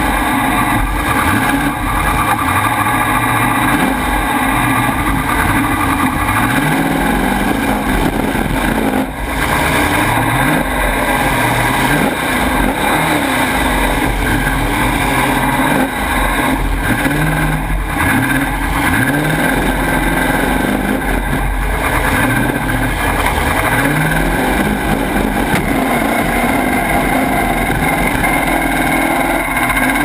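Demolition derby car's engine running loud through short open exhaust stacks on the hood, revving up again and again in short rising bursts as the car is driven and maneuvered.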